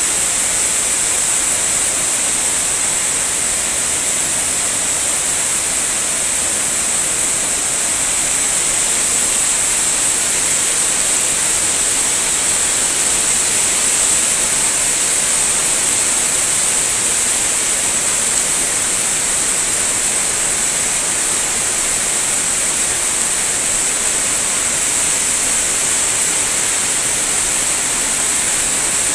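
Flood water rushing across the ground in heavy rain: a loud, steady, unbroken hiss of moving water.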